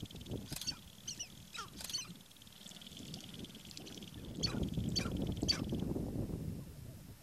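Sharp-tailed grouse giving short, clucking, quack-like calls in a scattered series. A low rumbling noise swells up about four seconds in and fades out near the end.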